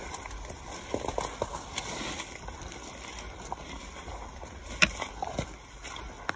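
Footsteps through brush and leaf litter, with rustling and handling noise from a hand-held phone, and one sharp click about five seconds in.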